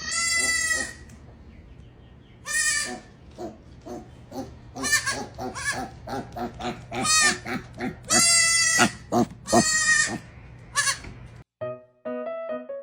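An animal calling over and over: long, loud, drawn-out cries about a second each, with shorter calls between, over a steady low hum. Piano music comes in near the end.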